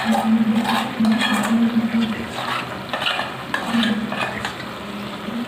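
A metal spoon stirring and scraping chicken with onion paste in a frying pan, in repeated strokes against the pan, with the food sizzling. A steady low hum runs underneath.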